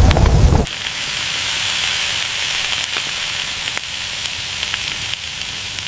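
Turkey sizzling in a hot clay cooking pit: a steady hiss with scattered crackling pops. A low rumble cuts off under a second in.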